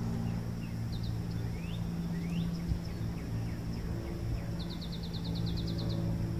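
An engine running at a steady pitch, with birds chirping over it, including a rapid trill in the last couple of seconds.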